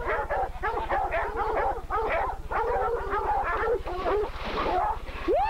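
Dogs barking and yelping rapidly in a dense, overlapping run of short calls during a fight with a hog, over a steady low hum.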